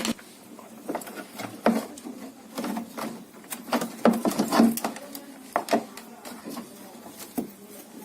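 Irregular clicks, knocks and rattles of washing machine parts being handled as the housing is opened and the capacitor pulled out, over a faint low hum.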